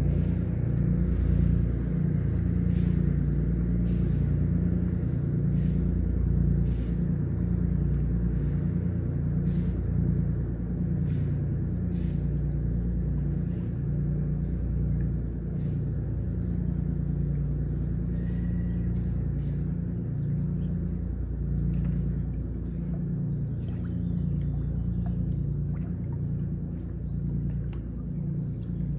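Diesel engine of a passing canal barge running with a steady low rumble, slowly fading toward the end.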